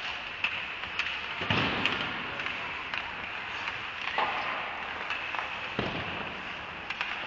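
Ice hockey play: a steady hiss of skates scraping the ice, broken by sudden clacks and thuds of sticks, puck and boards, with heavier thuds about a second and a half in and again near six seconds.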